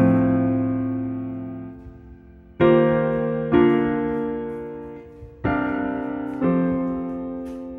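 Background music: slow piano chords, each struck and left to fade, about five in all.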